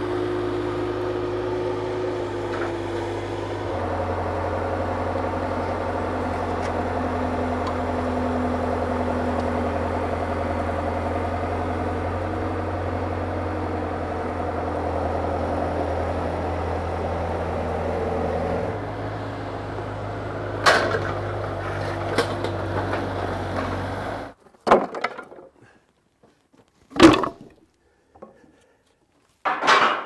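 Skid steer loader's engine running steadily as it carries a stack of lumber on its forks, its pitch shifting about 4 seconds in and again near 19 seconds, then cutting off abruptly. After that come a few sharp wooden clacks of boards being handled.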